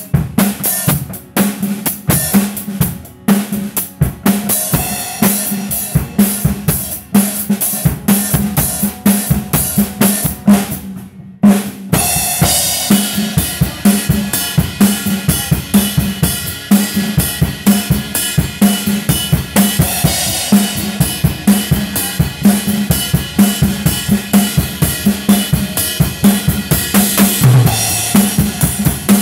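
Drum kit played in steady time. About eleven seconds in the playing stops briefly, then comes back fuller, with cymbals washing over the beat.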